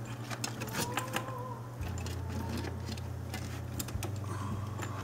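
Small clicks and rattles of plug connectors and wiring being handled inside a metal radio go box as a disconnected lead is plugged back in, over a steady low hum.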